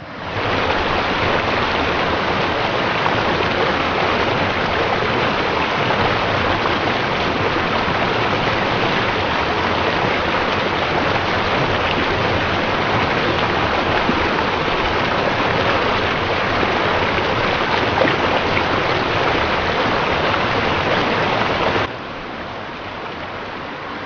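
Flooding river water rushing steadily. About 22 seconds in it cuts to a quieter rush of water.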